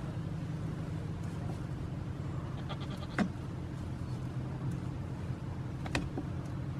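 Goats giving two short bleats, one about three seconds in and one about six seconds in, over a steady low rumble.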